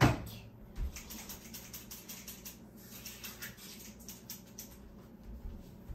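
A rapid run of light clicks and taps from kitchen utensils on dishes, with one sharper knock right at the start.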